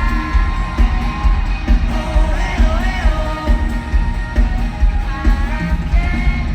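Live pop song, as heard from the audience: a male singer holding long, wavering notes over a backing track with a heavy, steady bass beat.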